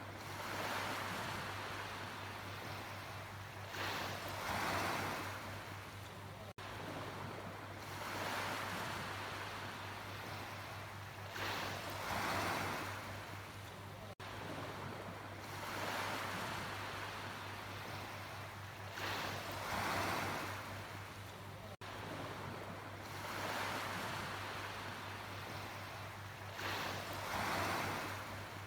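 Sea waves breaking and washing up the shore, a steady rush of surf that swells into a louder surge every few seconds.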